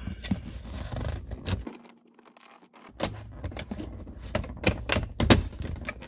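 Saab 9-3 plastic console trim piece being worked into place by hand: scraping and a run of sharp plastic clicks and knocks as its tabs and clips seat, loudest about five seconds in.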